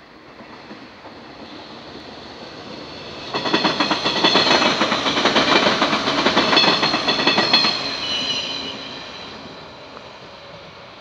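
115-series electric train passing close by, its wheels clattering over the rail joints in a rapid run of clicks. It grows louder over the first three seconds, is loudest from about three seconds in to nearly eight, then fades as it moves away.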